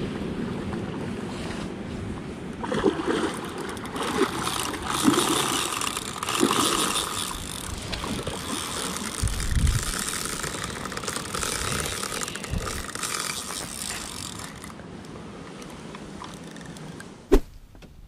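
Strong wind gusting over the microphone, rising and falling. Near the end it drops away, with one sharp click.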